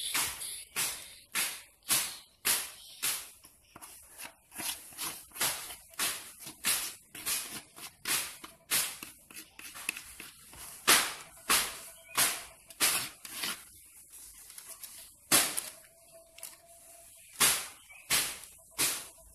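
Silicone spatula scraping brownie batter out of a plastic bowl and spreading it in a paper-lined pan: a quick run of short, rasping strokes, about one and a half a second.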